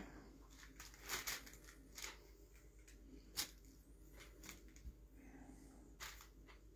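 Faint rustling of quilting fabric pieces being handled and laid out on a table, a few short soft rustles and taps spread out with quiet between them.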